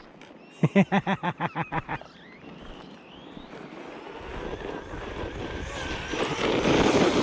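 Redcat Kaiju EXT RC monster truck running fast over dirt, its motor and tyres swelling louder as it comes closer and loudest near the end. About half a second in there is a quick run of about ten short pitched pulses.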